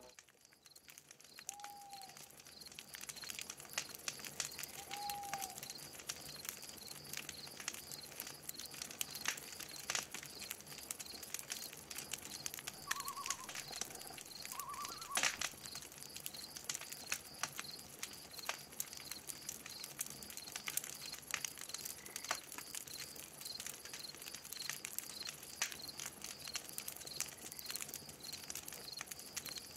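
Outdoor nature ambience: a few short bird calls and two brief trills stand out over a high, evenly pulsing background and scattered faint clicks.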